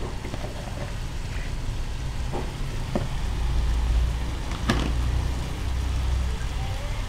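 Squid and flowering garlic chives frying in a wok: a steady low rumble under the sizzle, with a few sharp clicks of a metal spatula against the pan, the loudest about two-thirds of the way through.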